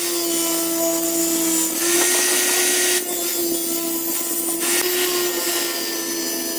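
Table saw running with a steady whine while its blade rips a wooden plank, the cutting hiss swelling for a second or so at a time as the board is pushed through.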